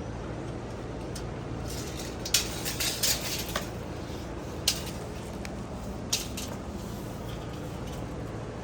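A few sharp, light clicks and taps, clustered around the middle, over a steady low background rumble.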